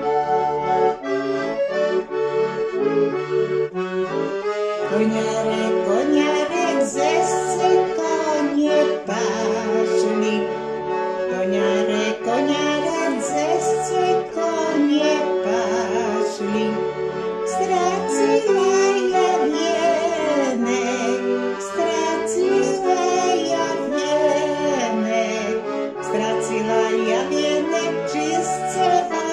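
Accordion playing an eastern Slovak folk song, melody over sustained chords.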